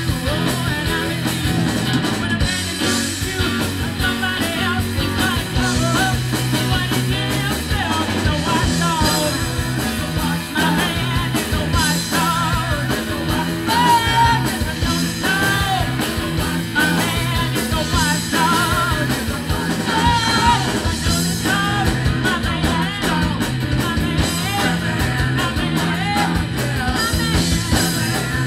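Live rhythm-and-blues band playing at full volume: a female lead singer over electric guitars, electric bass and a drum kit keeping a steady beat.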